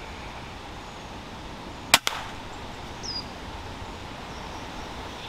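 A single shot from a Weihrauch HW100KT .22 sub-12 ft/lb PCP air rifle about two seconds in: one sharp crack, followed a split second later by a fainter knock, over steady woodland ambience. A bird gives one short chirp about a second after the shot.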